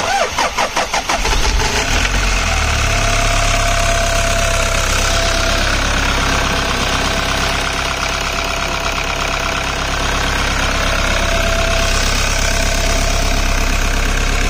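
Toyota Hiace engine being started after its turbo kit replacement: about a second and a half of pulsing as it cranks and catches, then it runs steadily. A thin whine comes and goes twice over the running engine.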